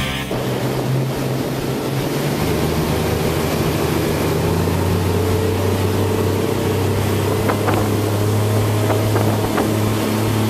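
Twin Yamaha outboard motors running steadily with the boat under way, over the rush of water and wake.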